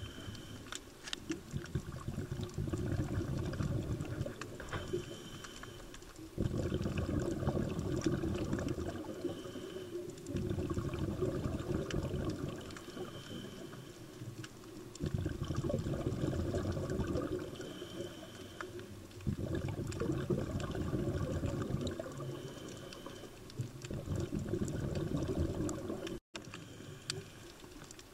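Scuba diver's regulator breathing heard underwater: bursts of exhaled bubbles crackle and gurgle for a few seconds at a time, about every four seconds, with quieter stretches between breaths.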